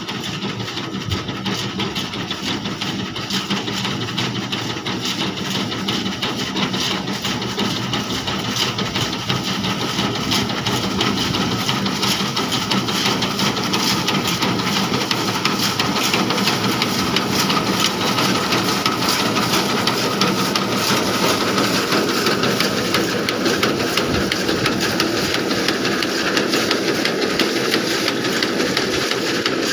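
Massey Ferguson tractor's diesel engine running steadily while its mounted reaper cuts soybeans, the cutter bar and conveyor chains clattering rapidly. The sound grows gradually louder over the first half.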